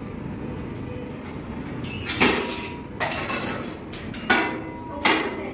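Weight stack of a seated gym machine clanking four times, roughly a second apart, with a short metallic ring after some, as the plates drop back between reps. A steady low hum sits underneath.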